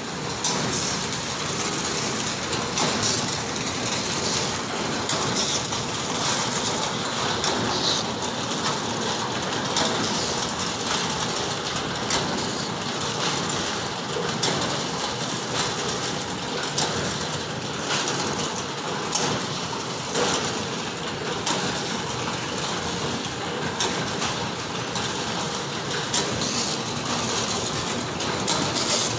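Automatic rusk packing machine running: a steady mechanical clatter from its conveyor and feed chain, with many sharp clicks throughout.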